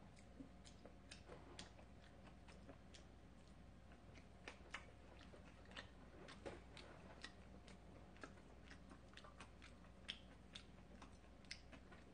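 Faint, close-up chewing while eating, heard as soft irregular mouth clicks and smacks a few times a second over near-silent room tone.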